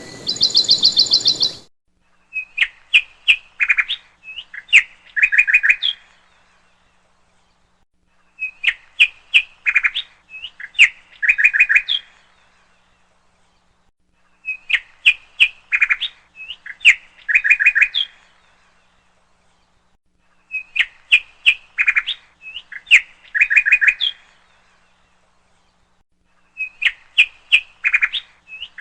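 Bird chirping: a phrase of quick clicks followed by high chirps, repeated in the same pattern about every six seconds with dead silence between. For the first second and a half, a different, denser high trill is heard.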